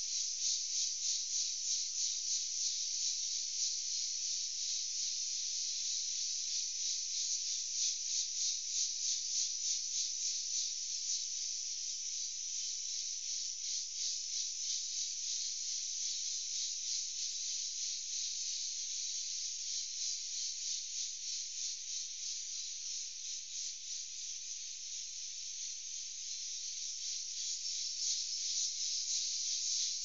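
Insect chorus in sunny scrub: a high, steady buzzing that pulses evenly and rapidly, easing off a little in the later middle and growing louder again near the end.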